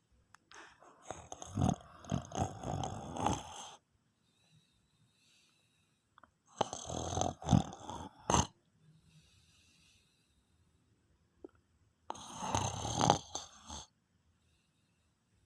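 A sleeping person snoring: three snores, each lasting a second or two, about five seconds apart.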